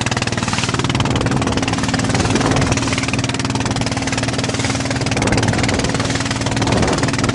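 Boat engine running at a steady speed, with a rapid, even firing rhythm; it starts abruptly.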